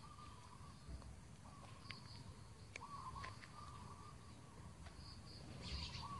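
Faint bird calls repeating in the background, with a few light clicks.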